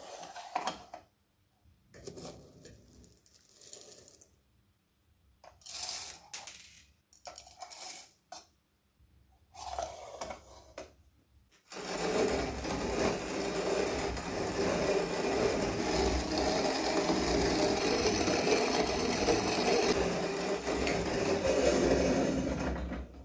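Restored cast-iron Leinbrock Ideal No. 0 hand-cranked coffee grinder: short scattered clinks and scrapes of its metal parts being handled, then, from about twelve seconds in, continuous grinding as the crank is turned and the burrs mill coffee beans. The century-old mill grinds smoothly.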